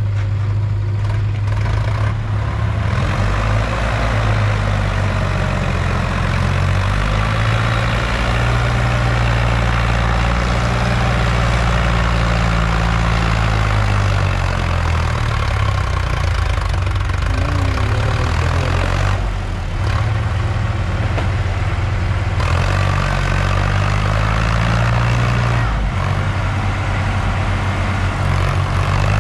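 Tractor diesel engine working hard under heavy load while pulling a soil-laden trolley up a loose sandy slope. Its note stays steady, then falls and rises a few times around the middle.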